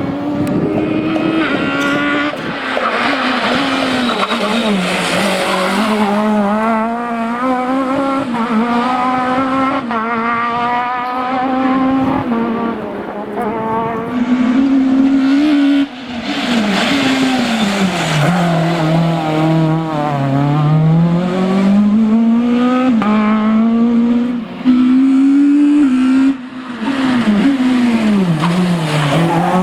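Renault Mégane Maxi kit car's two-litre four-cylinder rally engine at full throttle, revving up and down through gearchanges and lifts as the car is driven flat out. The clip cuts abruptly between passes about halfway through and again near the end.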